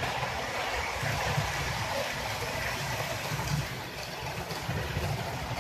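HO-scale model train running along the layout: a steady running noise of its wheels on the track as the coaches pass close by.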